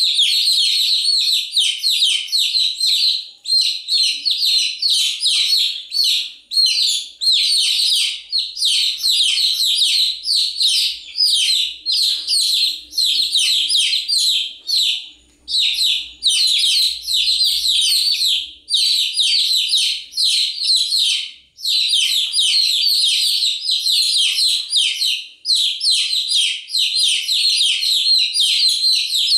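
A group of baby chicks peeping without pause: a dense stream of short, high peeps, each sliding down in pitch, broken only by a couple of brief lulls.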